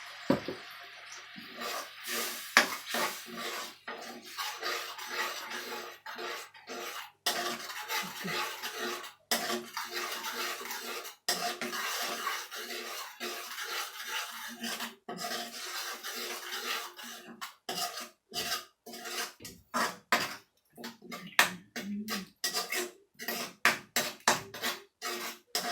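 Clattering of a utensil and seafood in a pot as the sauce and seafood are mixed: many irregular clicks and scrapes, quicker and sharper toward the end.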